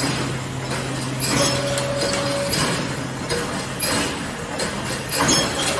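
Automatic brick force wire welding machine running: irregular metallic clinks and clacks from the mechanism, over a low steady hum.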